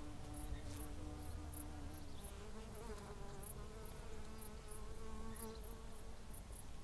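Hedgerow insect ambience: flying insects buzzing with a humming drone that wavers in pitch as they move about, over short high chirps that repeat irregularly a few times a second. There is a steady low rumble underneath.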